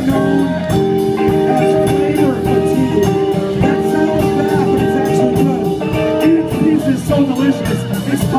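A live band playing, with guitar chords over a steady drum-kit beat; the held chords change every couple of seconds.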